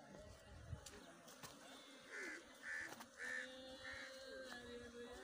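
A crow cawing faintly: four short calls in a row, about half a second apart.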